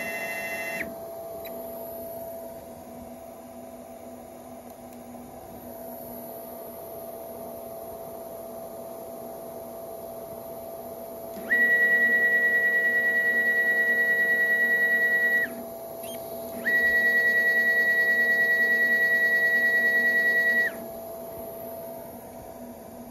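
NEMA 23 stepper motors on a G540 stepper controller, running with a steady high-pitched whine. One run ends about a second in, and two more follow in the second half, about four seconds each with a short pause between. Each glides briefly up in pitch as it starts and down as it stops, as the motors ramp up and down. A fainter steady hum runs underneath.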